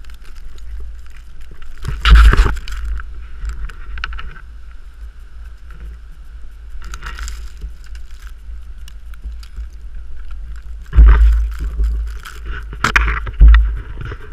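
Blizzard wind buffeting the microphone: a steady low rumble, with loud blasts about two seconds in and a cluster of them near the end.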